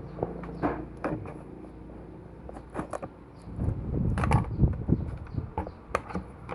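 A cardboard box and its packaging being handled and opened by hand: rustling and scraping with scattered clicks and knocks, busiest about four seconds in.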